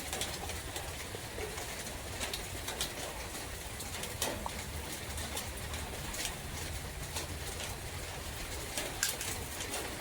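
Forest ambience: a dove cooing low and repeatedly over a steady hiss of rain, with scattered sharp drips and ticks of raindrops.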